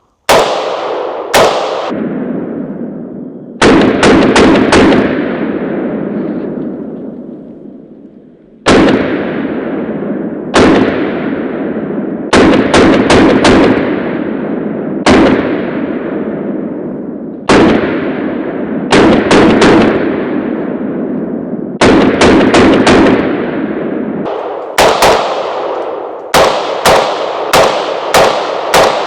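Palmetto State Armory GF3 AK-47 semi-automatic rifle firing 7.62x39 rounds, some single shots and some quick strings of three or four, with a faster run of shots near the end. Each shot leaves a long echoing tail.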